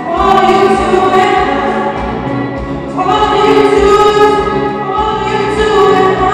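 A young male vocalist singing into a microphone, holding long notes, with a new phrase starting about three seconds in.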